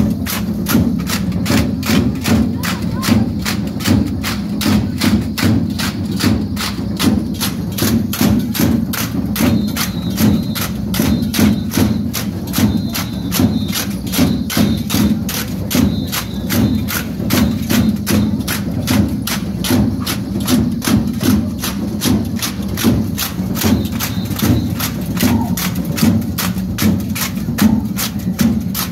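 Music for a street folk dance, driven by a fast, steady clatter of sharp wooden clicks, about five a second, from the dancers' percussion.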